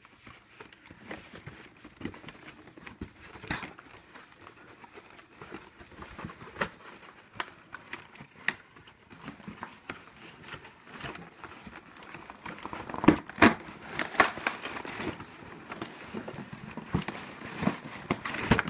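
Cardboard toy box and its packaging being handled and pulled open: irregular crinkling, rustling and light knocks, growing busier and louder about 13 seconds in.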